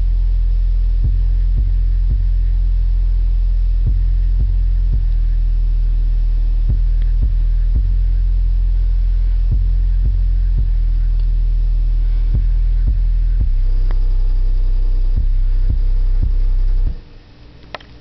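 A Bozak B-305 loudspeaker's woofer plays a deep, loud, steady sub-bass test tone from a bass test track, with occasional faint clicks. The tone shifts about three-quarters of the way through and then cuts off shortly before the end.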